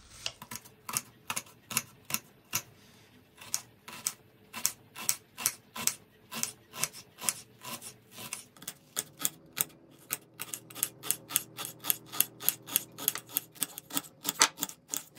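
Kitchen knife chopping a peeled onion on a hard cutting board: a run of sharp taps as the blade strikes the board, dicing it finely. The taps come about two or three a second at first and speed up to about four a second in the second half.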